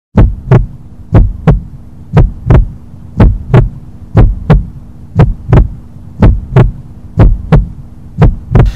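Heartbeat sound effect: paired lub-dub thumps about once a second, nine beats in all, over a low steady hum.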